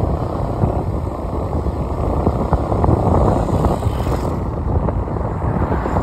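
A car driving: steady rumbling road and tyre noise, with many small crackles running through it.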